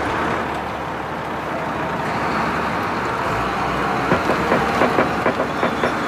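Heavy wheel loader's diesel engine running as it moves slowly over cobbles, with a run of clanks and rattles near the end.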